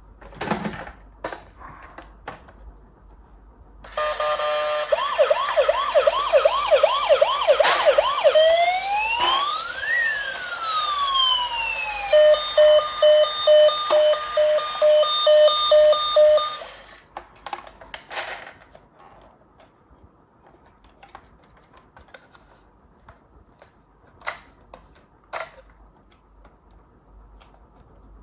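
Electronic ambulance siren that runs through three patterns: quick repeated rising whoops, then one slow rise and fall, then an even pulsing tone about two beats a second, before cutting off suddenly. Before and after it come light scattered clicks and knocks of toy cars being handled.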